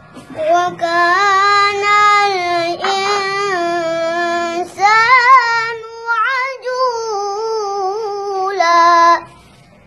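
A young boy chanting Quranic recitation in a melodic tilawah style, holding long high notes with wavering, ornamented turns of pitch over several drawn-out phrases. The chant stops about nine seconds in.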